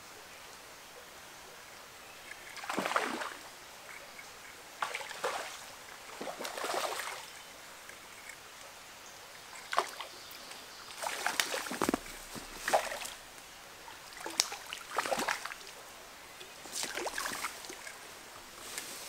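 Water splashing and sloshing in irregular bursts in a shallow stream: a hooked fallfish thrashing at the surface as it is reeled in, and wading steps through the water. A faint steady stream flow sounds underneath.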